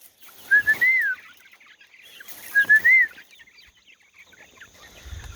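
Chicken squawking twice, about two seconds apart: each time a few short high notes run into a longer call that rises and falls, over a rustling scuffle.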